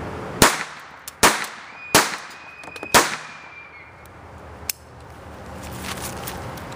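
A quick string of pistol shots from a .25 ACP pocket pistol fired at a car door at close range: four loud reports in about two and a half seconds, then one short sharp crack about two seconds later.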